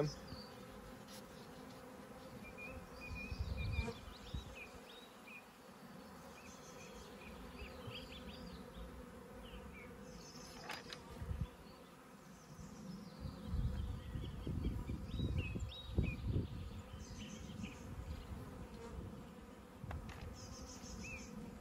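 Honeybees buzzing in flight around an opened hive, a steady faint hum.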